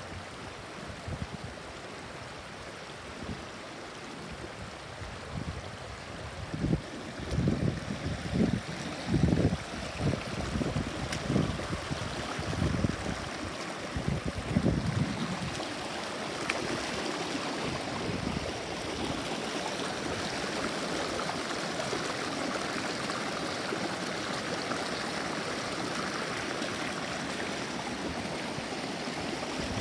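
Clear shallow stream flowing and babbling between stones, becoming an even, brighter rush of water over rocks for the second half. Irregular low thumps come and go between about 6 and 15 seconds in.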